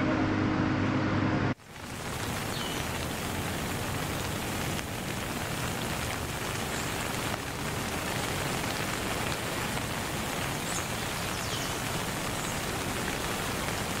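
Background music cuts off about a second and a half in, giving way to a steady rain-like hiss, with a few faint high chirps over it.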